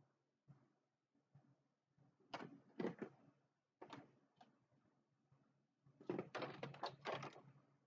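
Faint clicking, knocking and scraping from hands working loose parts of a car headlight assembly. It comes in a few short bursts, with the busiest stretch near the end.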